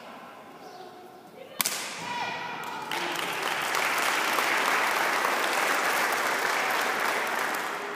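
A sharp crack, a short shout, then applause from the spectators, building over a couple of seconds and fading near the end.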